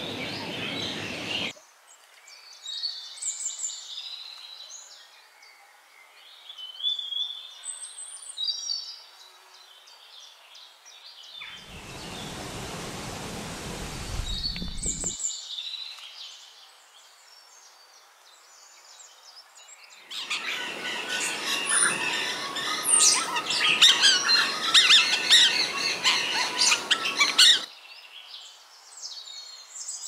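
Various birds chirping and calling, heard in several short clips joined by abrupt cuts. A burst of even rushing noise comes about 12 seconds in, and a louder, busier stretch of sound with many overlapping calls runs from about 20 to 27 seconds.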